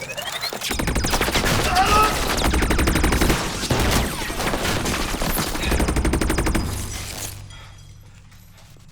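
Rapid, sustained automatic gunfire, a dense fusillade of shots that stops abruptly about seven seconds in.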